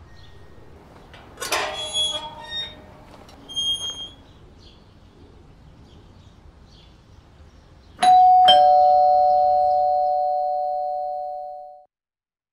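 Two-tone doorbell chime: a ding-dong, a higher note then a lower one about half a second apart, about eight seconds in, ringing out and fading for a few seconds before cutting off suddenly. Earlier, a metal gate clanks and squeaks as it is pushed open.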